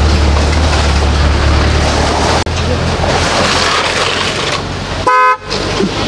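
A road vehicle's engine running close by with a steady low rumble, then a short honk of a vehicle horn about five seconds in.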